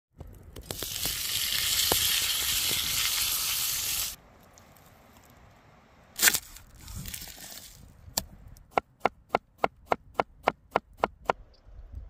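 Steak sizzling loudly in hot oil in a cast-iron skillet over a campfire, cutting off abruptly after about four seconds. Later a single sharp knock, then a quick run of about ten evenly spaced sharp knocks, about three a second.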